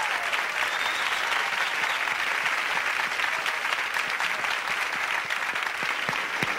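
Studio audience applauding steadily, thinning into separate claps near the end.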